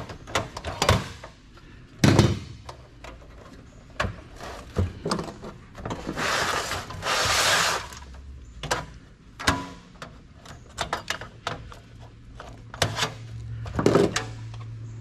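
Clicks, knocks and clatter of computer parts being handled and pulled apart during scrapping. A rough, rustling noise lasting about two seconds comes about six seconds in, over a faint steady hum.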